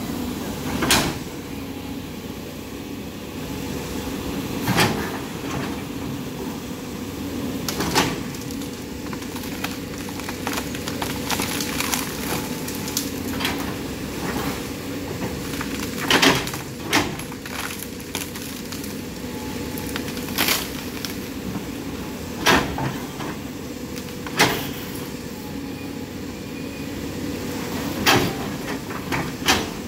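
A Cat 320D L hydraulic excavator's diesel engine running steadily with a constant hum, while the bucket works in a muddy river full of branches. About ten sharp knocks and clunks come at irregular intervals as the bucket digs and drags through debris.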